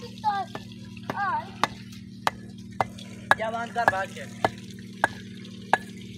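Bricklayer's trowel tapping bricks as they are set on a wall: sharp clicks, roughly one every half second, over a steady low hum.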